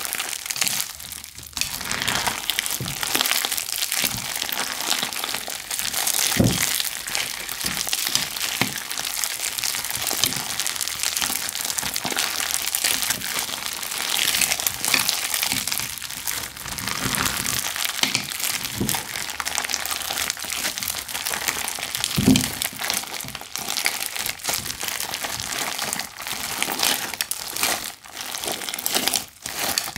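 Crunchy slime being squeezed and worked by hand: a dense, continuous run of crackles and pops, with a couple of soft low thuds along the way.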